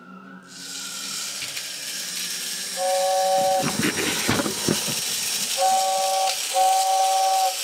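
The motor-driven fan and train whistle of a 1960s Sonic (Train) Robot's base unit running: a steady hiss of air, and the whistle giving three two-tone toots as a cam-worked flap opens and closes the air path. Some knocking from the mechanism sounds between the first and second toots.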